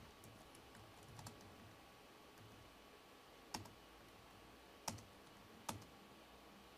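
A few isolated keystrokes on a computer keyboard: short sharp clicks over near silence, with three louder ones spaced about a second apart in the second half.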